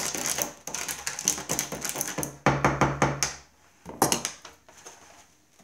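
Metal spoon stirring homemade flour-and-salt paint in a paper cupcake liner, a rapid run of small clicks and scrapes. About two and a half seconds in comes a louder clatter, and a few more knocks follow a second or so later.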